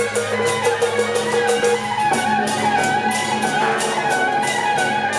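Music: a sustained melody over a fast, even percussion beat of about four or five strokes a second.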